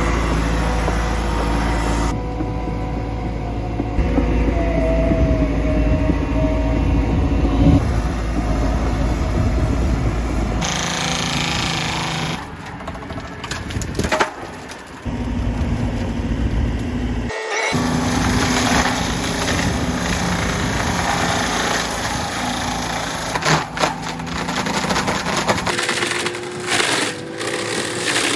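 Excavator's diesel engine and a Serrat F4 T-1600 hydraulic forestry mulcher's rotor running as it shreds brush and small trees. The sound changes abruptly several times, where one clip is cut to the next.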